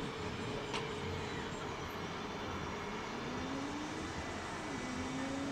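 Distant city traffic noise, with a faint whine that slides up in pitch about three seconds in and then holds steady.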